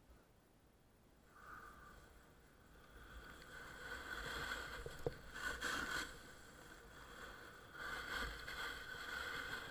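Snowboard sliding and scraping over snow, quiet at first, then louder after the first second and surging twice, with a sharp click about five seconds in.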